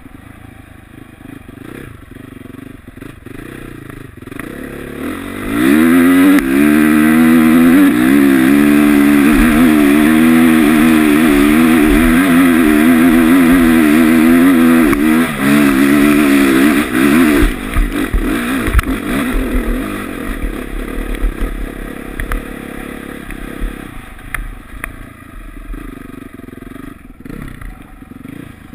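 2009 Honda CRF450R's single-cylinder four-stroke engine heard from the rider's helmet. It runs at low revs for about five seconds, then opens up to full throttle for a long, hard pull up a steep dirt hill climb with the revs wavering, and backs off about seventeen seconds in.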